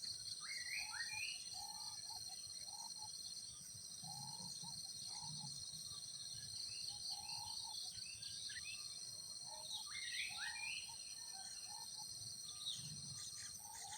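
Steady high-pitched insect drone, with birds calling over it in short phrases of rising and falling notes that come every few seconds.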